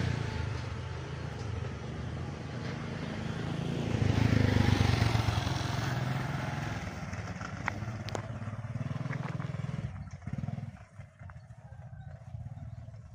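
Motor vehicle engines going past at a level crossing, with a steady low engine hum underneath. One vehicle builds to its loudest about four to five seconds in, then fades away, and the sound quietens after about ten seconds.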